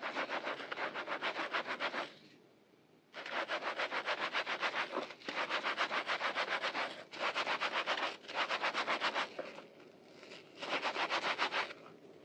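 Hands scrubbing a lathered sponge in soapy water: rapid, even back-and-forth rubbing strokes in about six bursts, with short pauses between them.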